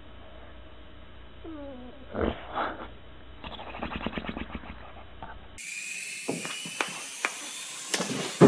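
A pet animal making sounds: short falling whine-like calls, then a quick run of rapid, even strokes. After a change of clip come more animal sounds and clicks, with a loud hit at the end.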